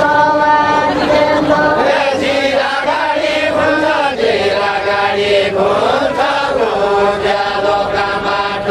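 Unaccompanied deuda singing: voices chanting a slow melody in long held notes that bend down at the ends of phrases.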